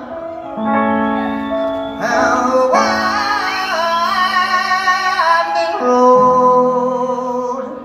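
Live singing with long held, wavering notes over upright piano chords.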